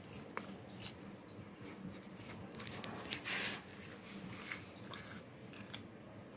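Knife cutting through a small mackerel's flesh along the backbone and ribs: scattered small clicks and scraping, with a louder, longer scrape about three seconds in.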